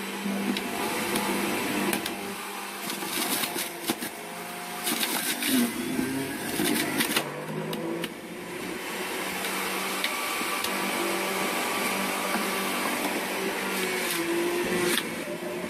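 Electric juicer running as celery stalks and Chinese cabbage are pressed down its feed chute with the pusher. The vegetables crunch and crackle in the machine, most densely in the first half, while the motor's pitch wavers as the load changes.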